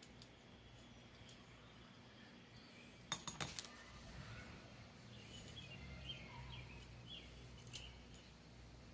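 A quick cluster of about four light metallic clicks about three seconds in, from circlip pliers and steel motorcycle transmission parts being handled and set down on the bench. Otherwise only faint handling noise.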